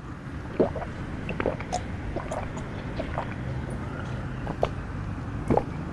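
A man drinking coconut water straight from an opened young coconut: irregular swallows and slurps, several in a few seconds.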